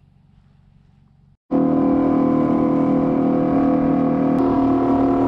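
Small outboard motor on an aluminium drift boat running at a steady speed while the boat travels on the river. It cuts in abruptly about a second and a half in, after a faint low hum.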